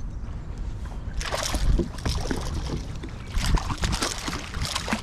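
Hooked mangrove snapper thrashing and splashing at the surface beside a kayak, in bursts of splashing that start about a second in and come again past the middle.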